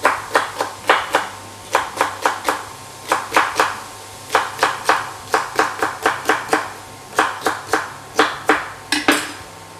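Chef's knife chopping celery on a wooden chopping board: quick sharp strikes, about three or four a second, in short runs with brief pauses between.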